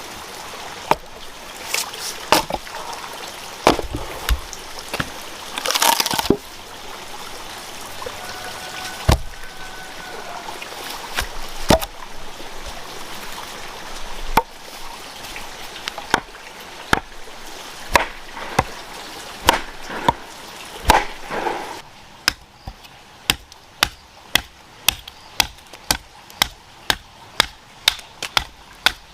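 Repeated chopping strikes on wood. They are irregular at first, over a steady trickle of water, then settle into a steady rhythm of about two blows a second near the end.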